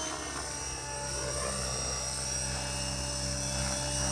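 Radio-controlled model helicopter flying, its rotor and drive giving a steady whine that drifts slightly down in pitch.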